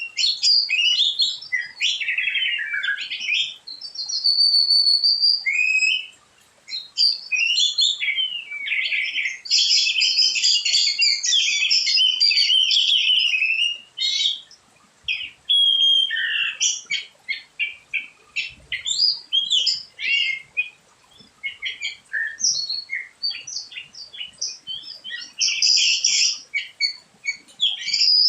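Songbirds singing: fast warbling phrases with rising and falling notes, dense for the first half, then breaking into shorter, scattered chirps with brief pauses.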